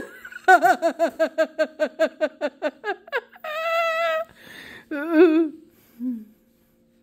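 Bully-breed dog whining, wanting up on the bed: a run of quick pulsed whines, about six a second, then a long wavering whine and a shorter one.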